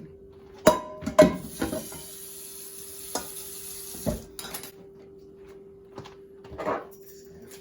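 Frying pan and utensils clinking in the kitchen: two sharp metallic clinks with a short ring about a second in, then a sizzling hiss for a few seconds and a few more knocks as the food is handled in and out of the pan.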